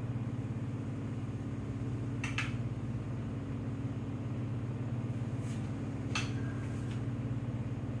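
A steady low mechanical hum, with a few brief clinks of a spoon against a bowl, about two seconds in and again around five and six seconds in, as a topping is spooned onto a cake.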